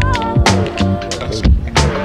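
Background music with a steady beat of drums and bass.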